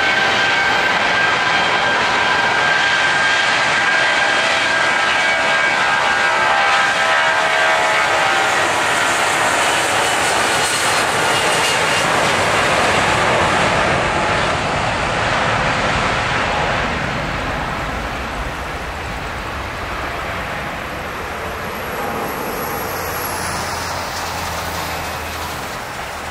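Boeing 757's two Rolls-Royce RB211 turbofans at full takeoff power: a high fan whine over a steady jet roar. The sound fades gradually from about two-thirds of the way in as the jet rolls away down the runway.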